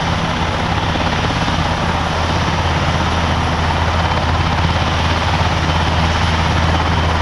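NH90 military transport helicopter running on the ground with its twin turboshaft engines and rotors turning after start-up: a steady, even low hum under a continuous turbine rush, holding at one level with no change in pitch.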